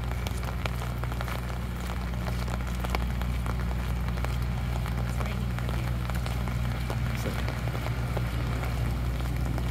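Rain falling on an umbrella overhead: a dense, even patter of drops ticking on the canopy, over a steady low hum.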